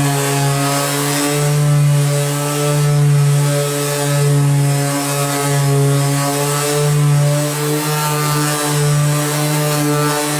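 Cordless orbital sander running steadily as its pad is worked across a primered car bootlid, a constant motor hum with a grainy sanding hiss. The level swells and dips gently as the pressure on the pad changes.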